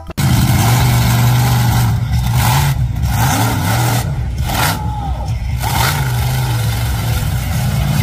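Monster truck's engine running hard, a low drone that rises and falls with the throttle, with louder surges about two and five seconds in.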